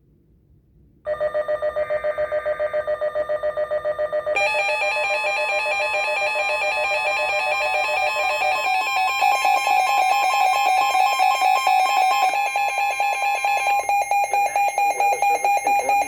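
Weather alert radio receiver sounding its alarm for an incoming Severe Thunderstorm Warning: a loud, rapidly pulsing electronic beeping made of several stacked tones. It starts about a second in, and more tones join partway through.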